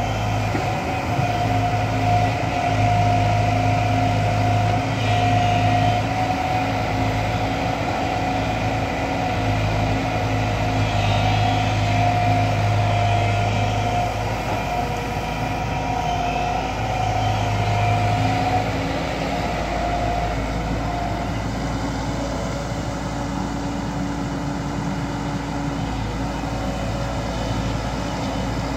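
JCB tracked excavator's diesel engine running under working load as the boom and bucket dig through sticky mud, with a high steady whine that comes and goes with each movement. After about two thirds of the way through, the load eases and the engine settles to a lighter, even note.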